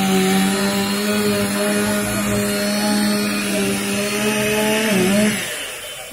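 Chainsaw engine running at a steady high pitch while cutting through a storm-felled tree. About five seconds in, its pitch sags and it drops away.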